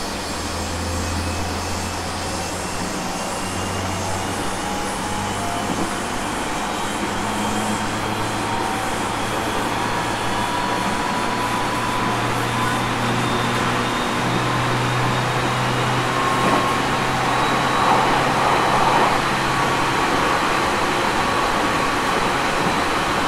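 Aoimori Railway 701 series electric train running between stations, heard from inside the car. A low motor hum steps up in pitch several times and a fainter whine slowly rises, while the running noise grows gradually louder as the train gathers speed.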